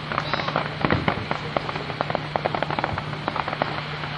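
Aerial fireworks display: a dense, irregular run of sharp pops and crackles from bursting shells.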